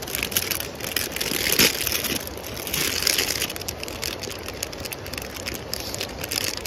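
Kettle of water heating on a portable gas stove: a steady hiss full of fine crackles.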